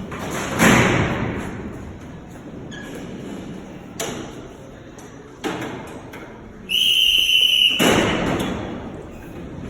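Sliding steel prison cell doors banging and clanking, with several separate knocks that ring on and fade. About two-thirds of the way through, a steady high tone sounds for about a second, followed at once by a loud, long crash as the doors slam home.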